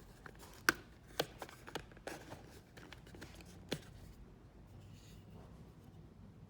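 Small screwdriver and fingers working on a model locomotive's plastic body shell: a handful of sharp, light clicks and scrapes over the first four seconds or so.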